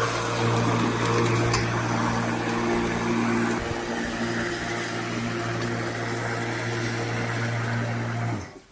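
Bosch cordless lawnmower's electric motor running with a steady hum. Near the end it winds down in pitch and cuts out.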